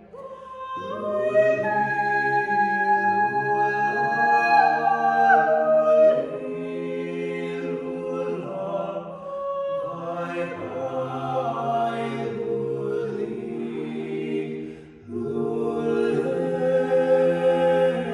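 A cappella choir singing held chords in long phrases, with breaks between phrases about six seconds in and again about fifteen seconds in.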